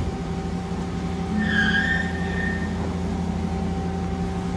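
Okuma Captain L470 CNC turning center idling under power: a steady electrical and mechanical hum made up of several steady low tones. About a second and a half in, a brief high squeak lasts about a second.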